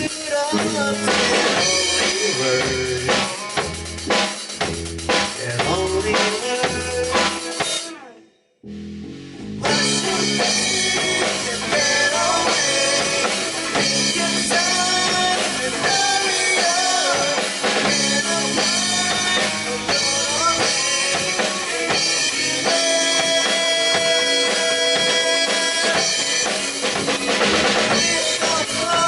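Band playing an instrumental passage with the drum kit prominent. About a third of the way in the music stops dead for about a second, then the band comes back in.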